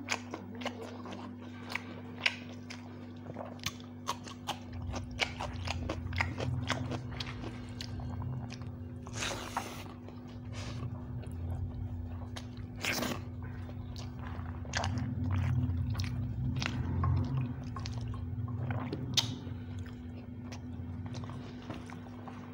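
Close-miked eating by hand: chewing and crunching of raw vegetables and rice, with many short clicks and wet squishes as fingers mix rice on a banana leaf.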